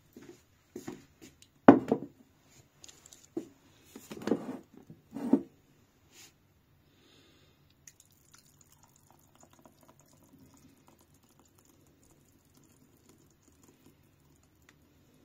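Several knocks and clunks as the stainless-steel jug of a small juice maker is handled, the loudest about two seconds in. After that comes a faint, steady trickle and drip of thick juice poured from the jug onto a ceramic plate.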